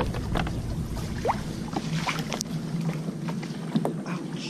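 Kayak being paddled through tight mangrove growth: irregular paddle splashes, knocks and scraping clicks against the hull and branches.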